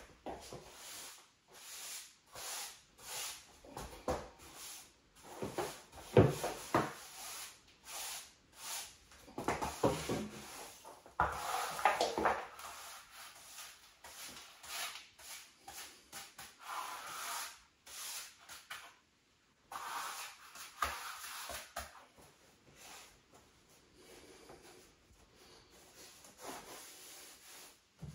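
A hand brush sweeping sawdust into a dustpan on a laminate floor in short scraping strokes, mixed with a few sharp knocks, the loudest about six seconds in.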